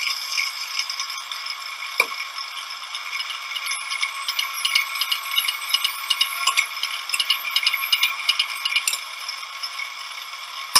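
Drilling machine running with an Archer tapper attachment, threading brass nut blanks: a steady mechanical running noise with a sharp click about two seconds in and a busy clicking rattle through the middle. It is heard as a recording played back over a video call, thin with no low end.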